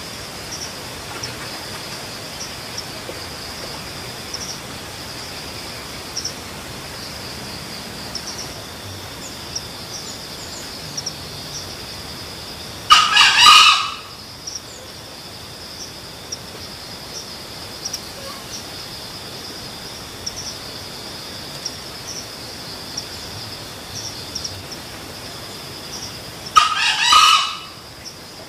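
A junglefowl cock crowing twice, about a second each time and some fourteen seconds apart, over a steady high drone of insects.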